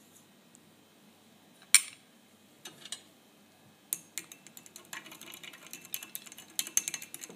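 Glass stirring rod clinking rapidly against the inside of a drinking glass while beating egg yolk, rum and sugar together, starting about four seconds in. Before that there is a single sharp clink about two seconds in, with a lighter one just after.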